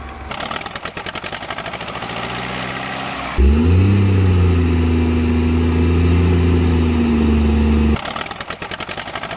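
Dubbed-in engine sound effects: a rapid diesel-like clatter, then about three seconds in a louder engine that rises in pitch and runs steadily, cutting off abruptly about eight seconds in back to the clatter.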